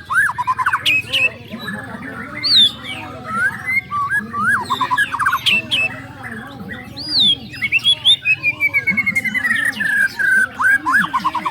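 Several white-rumped shamas singing at once: a dense, overlapping stream of whistles, chirps and rapid trills. About eight seconds in comes a long falling trill.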